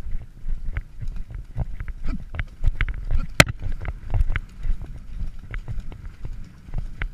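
A horse galloping on a leaf-covered woodland track, heard from the saddle: rhythmic hoofbeats and thuds over a low rumble of wind on the microphone, with one sharp crack about three and a half seconds in.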